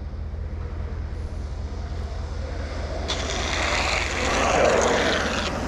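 Skateboard wheels rolling on asphalt as a rider goes past, a rushing noise that swells from about halfway through and eases off near the end, over a steady low rumble.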